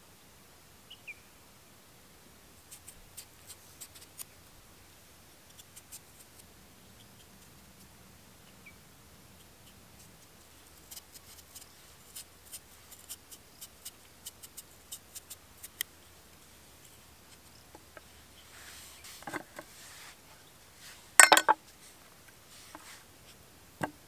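Small knife peeling a raw potato: a run of faint, crisp clicks as the blade cuts through the skin, growing denser midway. Near the end comes one much louder sharp knock on the wooden board.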